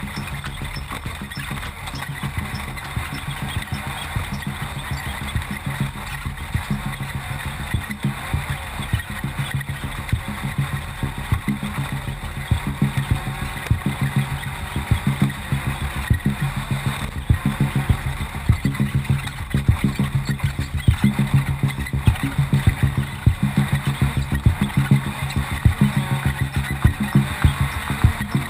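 Off-road race car engine running steadily under load, with frequent knocks and rattles from driving over rough desert terrain; the knocks grow louder about halfway through.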